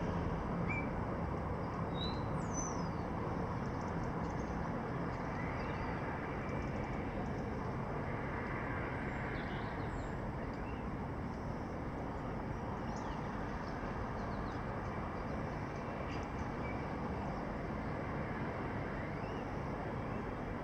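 Steady city background noise with scattered short bird chirps and whistles over it. A low hum fades out in the first few seconds.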